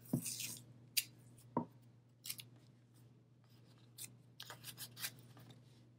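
Scissors snipping yarn: a short rustle, then a few sharp, separate snips with a quicker run of them near the end.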